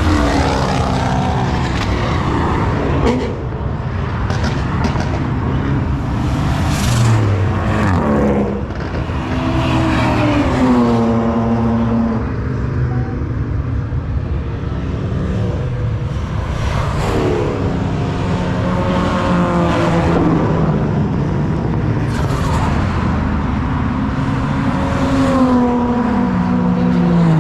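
Ford Barra inline-six engine in a VL Commodore running hard on a race track. The engine note climbs under acceleration and falls away several times as it shifts or lifts off.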